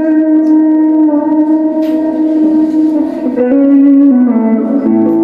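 Telecaster electric guitar played through a Boss ME-80 multi-effects patch of distortion with ambience, holding long sustained chords that change to new ones several times.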